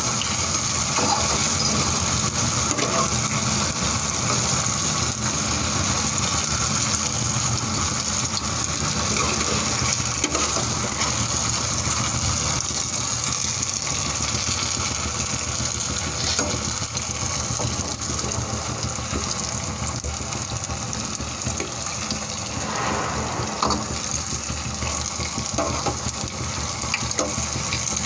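Sweet wheat-flour and sugar-batter pua fritters deep-frying in hot oil in a kadhai: a steady sizzle.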